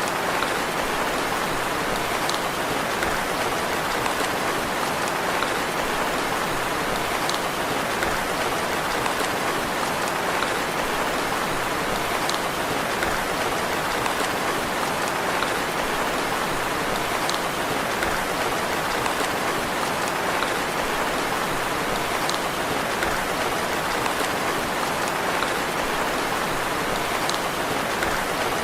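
Steady rain falling, an even hiss with occasional single drops ticking out above it.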